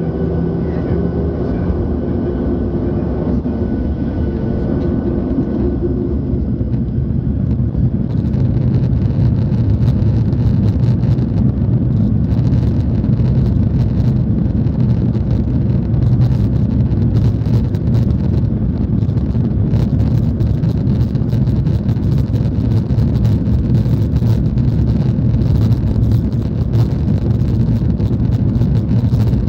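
Boeing 737-800 cabin sound at an over-wing window seat: its CFM56-7B turbofans start with steady tones, then about eight seconds in give way to a louder, steady rumble and rush as the jet rolls down the runway on its takeoff run, with rattling from the camera mount.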